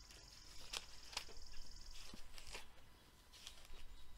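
Faint paper rustling with a few light clicks as Bible pages are turned, over a faint high steady whine that stops about two seconds in.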